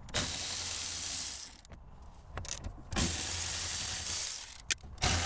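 Milwaukee cordless ratchet running in two bursts of about a second and a half each, spinning out 10 mm bolts, with a third burst starting right at the end.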